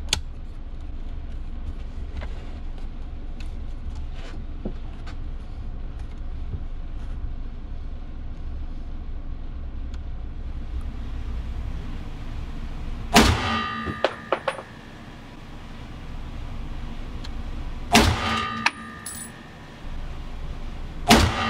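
Three shots from a WWII M1 Garand semi-automatic rifle, about 13, 18 and 21 seconds in, the action now cycling properly with the original gas plug fitted. Each of the first two shots is followed by about a second of ringing clink from the ejected brass. Before the first shot there is only a steady low rumble.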